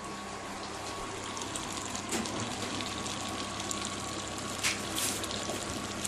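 Butter sizzling as it melts and foams in a saucepan: a steady hiss with fine crackle. This is the first stage of making a roux. A light click comes about four and a half seconds in.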